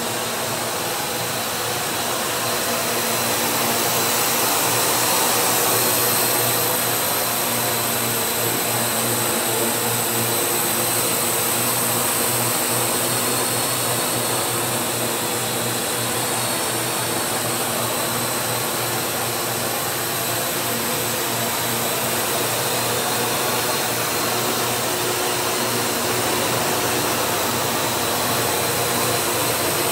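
Parrot AR.Drone quadcopter with its indoor propeller hull, hovering and flying slowly: four electric rotors buzzing steadily, a high whine over a low hum. It swells a little about five seconds in.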